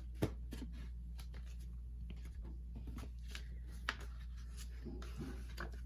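Hands handling album packaging and photo cards: soft rustling and small scattered clicks, with a sharper click just after the start and another about four seconds in, over a steady low hum.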